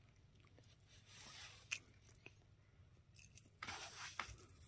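Faint scuffling of a cat biting and tussling with a toy held in its mouth: scattered small clicks and two short rustling bursts, each ending in a sharper click.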